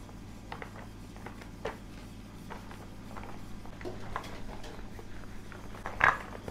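Plastic sheet crinkling and rustling under hands folding pastel dough and a metal rolling pin rolling it out, with light scattered taps and a sharper crackle about six seconds in. A low steady hum runs underneath.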